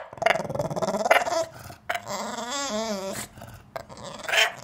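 English bulldog grumbling and growling in protest at being kept off the couch, with a longer whining call that wavers up and down in pitch about two seconds in and a short grunt near the end.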